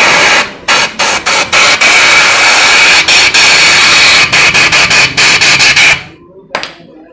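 Compressed-air blow gun hissing loudly into the underside of a Yamaha NMAX scooter engine that has run out of oil, in many short blasts with a couple of longer ones, stopping about six seconds in.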